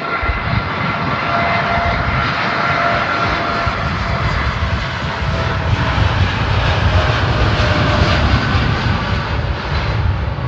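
Jet airliner flying low past, its engines giving a loud rushing rumble with a whine on top that slowly falls in pitch.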